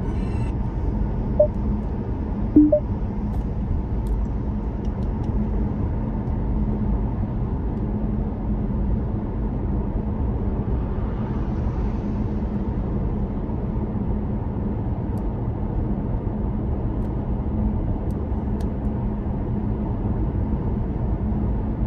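Steady road and engine rumble heard from inside a car cruising on a highway, with a constant low hum under it. Two short pitched blips come in the first three seconds, and the hiss swells briefly about halfway through, as of a vehicle passing.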